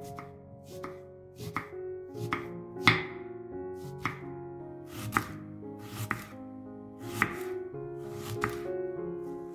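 Kitchen knife slicing an onion on a wooden cutting board: a crisp cut and knock of the blade on the board roughly once a second, over soft background music with sustained tones.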